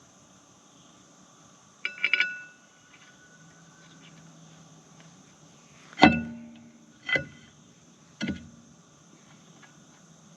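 Metal tools and parts clanking against steel during skid steer track work: a quick cluster of light clinks about two seconds in, then three heavier ringing clanks, the loudest about six seconds in.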